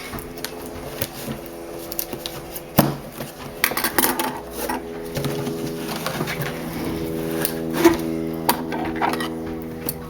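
A cardboard shipping box being opened and handled: scattered clicks, scrapes and knocks, with a sharp knock near the middle, over a steady low hum.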